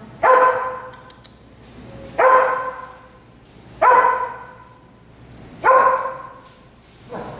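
A dog barking at an even pace, about one bark every two seconds: four loud barks and a fainter fifth near the end, each echoing briefly in the room.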